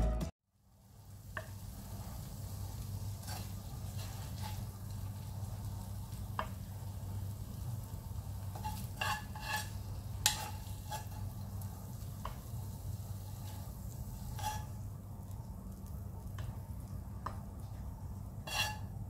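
Music cuts off at the start. Then a steady low hum with scattered light clicks and clinks of kitchen utensils, loudest about ten seconds in and again near the end.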